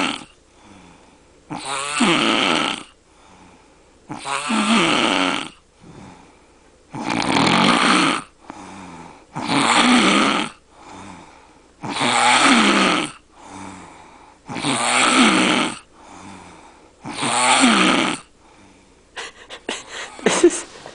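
Very loud snoring from a sleeping man: about seven long snores, one roughly every two and a half seconds, each lasting about a second and a half, with quieter breathing between them. Softer rustling sounds come in near the end.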